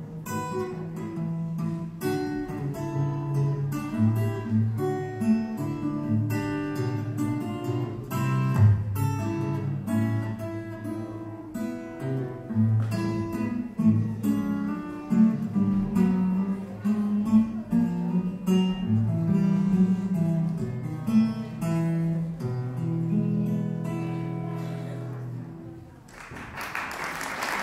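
Solo acoustic guitar played by plucking, a melody of single notes and chords over low bass notes. It ends on a held chord that rings out and fades. Applause starts near the end.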